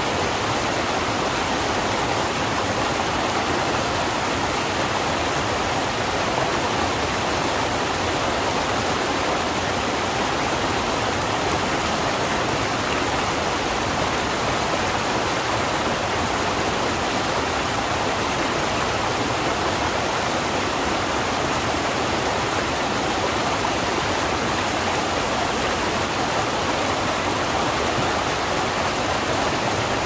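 Mountain stream cascading over boulders: a steady rush of water, even and unbroken throughout.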